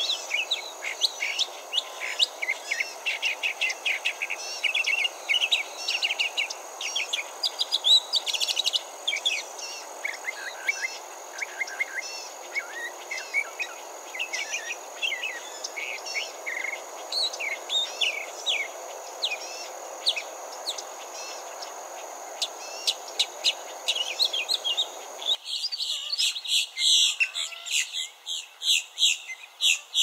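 Northern mockingbird singing a long, varied string of quick chirps and phrases over a steady background rush. Near the end the sound cuts to a different bird giving fast, repeated calls.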